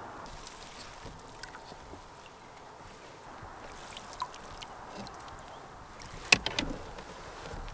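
Canoe being paddled: light water sounds from the paddle and hull, with small clicks and a sharp knock with a short rattle about six seconds in.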